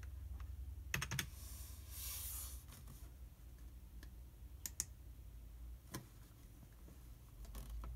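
Computer keyboard being typed on: scattered key clicks and a few sharper single clicks, over a low steady hum.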